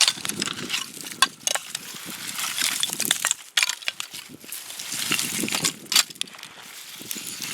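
Irregular clinks and crunches of scrap iron and broken glass debris being moved about, with a few sharper clinks standing out.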